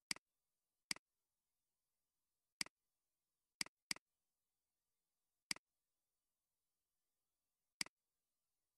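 Computer mouse clicking seven times at uneven intervals, each click a quick press-and-release double tick, two of them close together near the middle.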